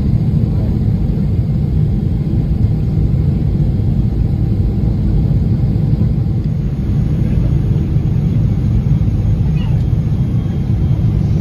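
Jet airliner's engines and airflow heard inside the cabin as a steady low rumble during the landing.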